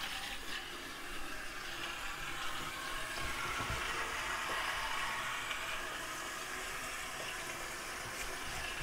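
Water rushing out of newly plumbed PEX supply lines turned on for the first time, sputtering as trapped air is purged from the system.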